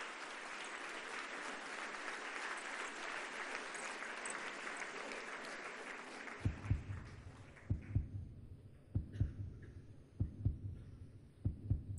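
A steady, even rushing noise for about the first six seconds. Then a heartbeat sound effect from a film soundtrack: low double thumps about every second and a bit.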